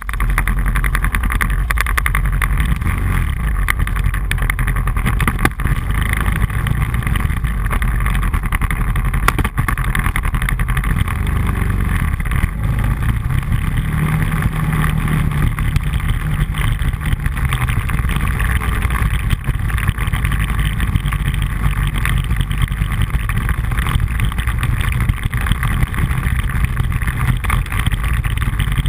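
An ATV engine running steadily while the quad rides along a rough dirt trail, heard close up from a camera mounted on the machine, with a strong low rumble throughout.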